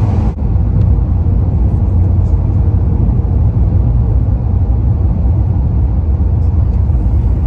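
Steady low road and engine rumble inside a moving car at highway speed, with a brief dip about a third of a second in.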